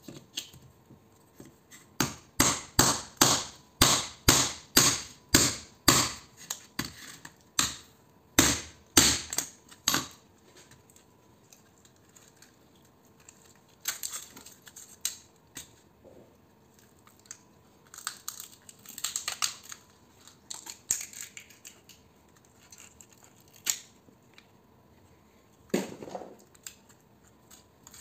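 Hammer rapping a small transformer's laminated steel core against a steel plate, about three sharp blows a second for some eight seconds, knocking the core plates loose to strip the transformer for scrap. Then quieter scraping and clinking as the loosened laminations and copper winding are pried apart by hand, with one low knock near the end.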